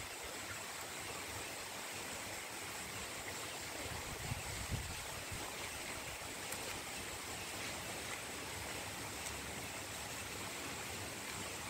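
Steady rush of flowing water from a waterfall and stream, an even hiss that does not change.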